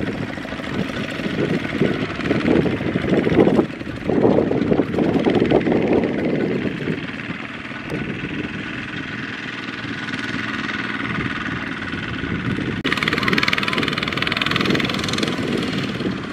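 Kubota RT140 power tiller's single-cylinder diesel engine running under load as it tows a loaded trailer, swelling and dropping in level over the first few seconds, then running steadily. About 13 seconds in, the sound changes abruptly and becomes brighter and hissier.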